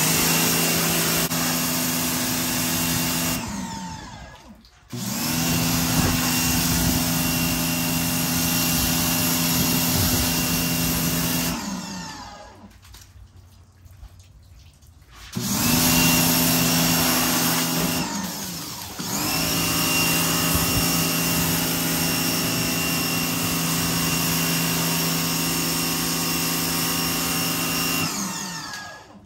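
Electric pressure washer running with a motor whine and spray hiss, switching on and off with the trigger four times. Each time it stops, the motor winds down.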